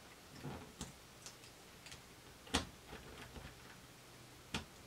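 Irregular small clicks and taps from a small plastic cable connector and a hand tool being handled on a cutting mat. The two loudest come about halfway and just before the end, over a faint low hum.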